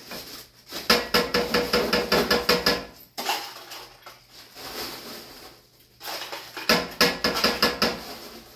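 A cooking spoon knocking rapidly against the rim of a stainless-steel pan to shake off sauce, in two runs of quick taps, the first about a second in and the second near the end.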